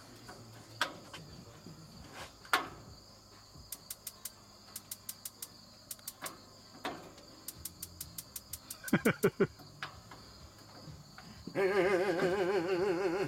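Gas barbecue igniter clicking in rapid runs of sharp ticks, several a second, without the burner lighting, over a steady chirring of crickets. A louder warbling tone sounds for the last couple of seconds.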